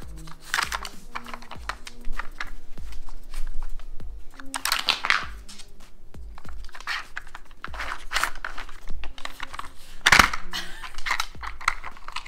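Plastic clicking and clattering from an Outward Hound dog treat puzzle as a dog noses its hinged lids and covers open, with the loudest clatters about five seconds in and again about ten seconds in. Background music with a steady low beat plays throughout.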